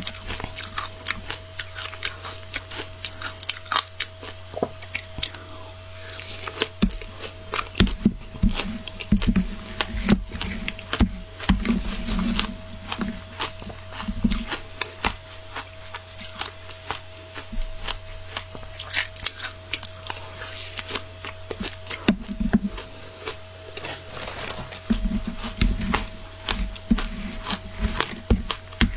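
Close-up biting and crunching of frozen matcha shaved ice in the mouth: irregular crisp crackles that come in dense clusters with quieter gaps, as mouthfuls are chewed.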